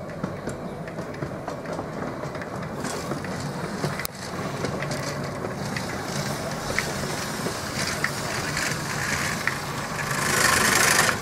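Romney, Hythe & Dymchurch Railway's one-third-scale 4-6-2 Pacific steam locomotive No. 7 'Typhoon' running slowly on 15-inch gauge track, a steady rumble with wheels clicking on the rails. Near the end a loud hiss of steam lasts about a second.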